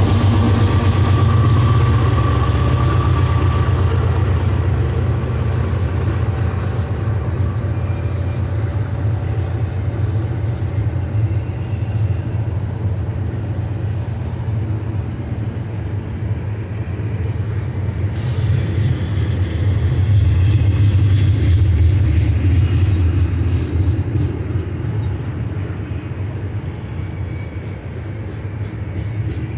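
Freight train passing close by. The GE diesel locomotives' engines fade away in the first few seconds. A steady low rumble and clatter of wheels on rail follows as the double-stack container well cars roll past, swelling again about twenty seconds in.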